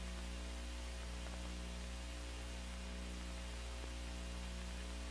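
Steady low electrical mains hum with a faint hiss, the background noise of an old film soundtrack; nothing else happens.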